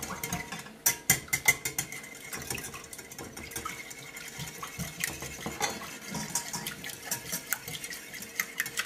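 Wire whisk beating an egg wash of eggs, water and hot sauce in a glass bowl: quick, uneven clicking of the whisk wires against the bowl.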